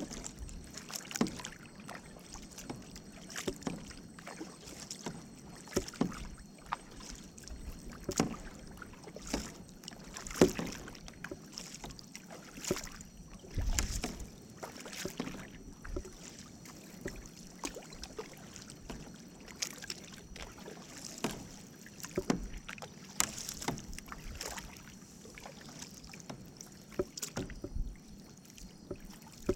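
Canoe paddles dipping into lake water: short splashes and drips at an irregular pace, about one stroke every second or two.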